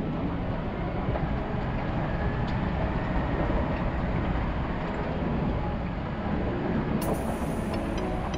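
Toyota Land Cruiser 76 series driving slowly over a rough, stony dirt track: a steady rumble of engine and tyres on loose rock, with a few faint knocks.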